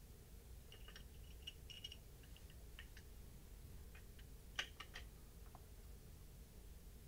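Faint scattered clicks and ticks of a hex driver and screws being worked on a telescope mount's plate, a cluster in the first two seconds and the loudest single click about four and a half seconds in.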